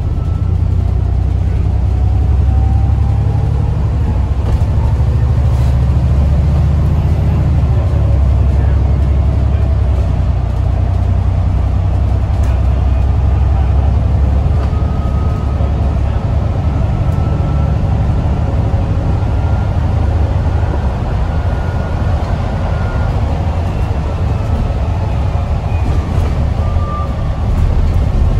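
Alexander Dennis Enviro 400 MMC double-decker bus heard from inside the passenger saloon while under way: a steady low engine rumble with road noise, and faint rising whines now and then.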